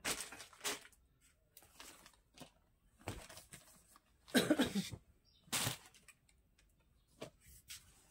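Rustling and shuffling of clothes being handled and moved, coming as several short bursts, the loudest about four and a half seconds in.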